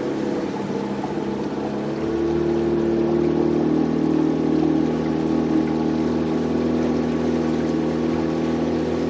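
Small motorboat's engine running steadily under way, getting a little louder and slightly higher in pitch about two seconds in.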